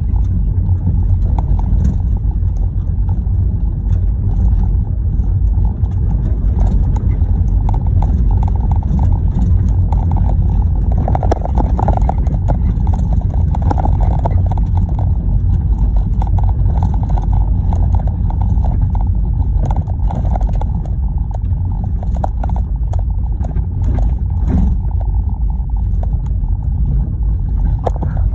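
A car driving on a gravel dirt road, heard from inside the cabin: a steady low rumble of tyres and engine, with frequent small clicks and rattles throughout.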